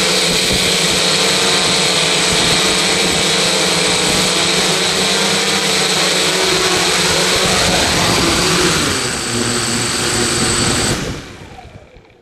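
Loud, steady machine noise with a high held whine, which dies away quickly about eleven seconds in.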